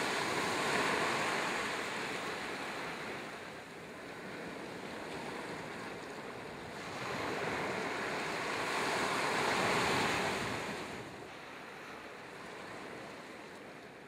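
Small waves breaking and washing up a beach. The surf swells twice, near the start and again about two-thirds of the way in, then fades toward the end.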